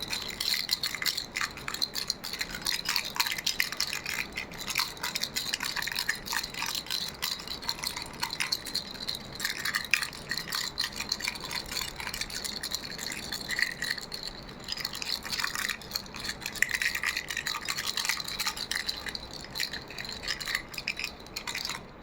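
Baby rattle shaken steadily, a dense stream of small clicking and jingling sounds that stops suddenly near the end.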